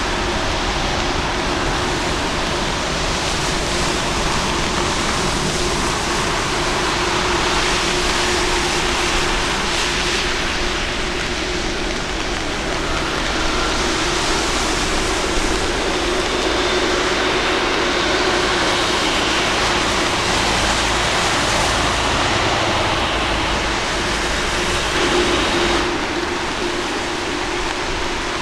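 Boeing 747-8 Freighter's GEnx-2B turbofans running at low taxi thrust: a steady rushing jet noise with a faint low hum under it, swelling slightly near the end.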